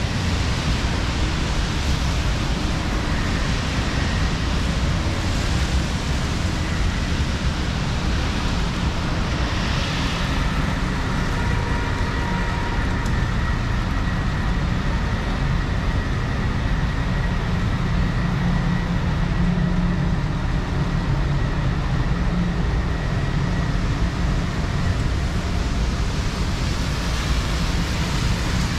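Steady city street traffic noise: vehicles passing on a rain-wet road with a continuous rushing sound, and a deeper engine hum swelling for a few seconds past the middle.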